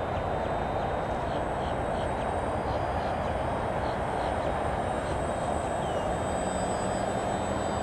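High thin whine of the electric motor and propeller of a Durafly 1100mm Corsair foam RC warbird flying overhead, over a steady rushing hiss; the whine grows stronger near the end as the plane comes closer.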